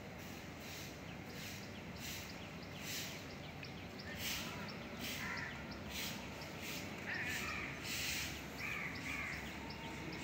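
Crows cawing now and then over steady outdoor background noise, with a small bird chirping quickly and repeatedly through the middle.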